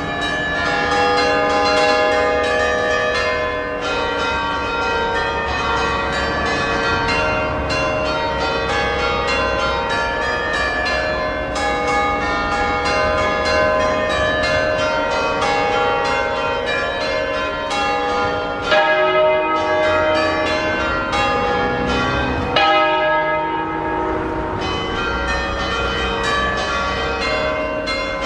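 Tower of eight bronze church bells tuned in E-flat, rung together in a continuous festive peal of overlapping strikes, each bell's tone ringing on under the next.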